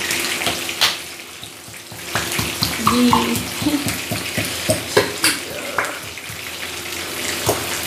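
A hand smacking the bottom of an upside-down ketchup bottle, several sharp slaps at uneven intervals, to knock out ketchup that won't flow. A pan of stew bubbles underneath.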